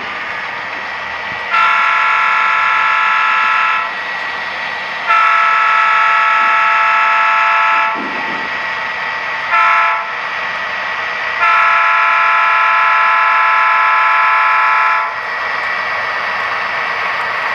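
Model diesel locomotive's sound system blowing a multi-chime air horn in the grade-crossing pattern: long, long, short, long. A steady diesel engine hum continues underneath and between the blasts.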